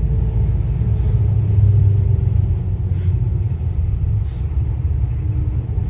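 Steady low rumble of a moving road vehicle heard from inside it: engine and road noise while it drives along a street.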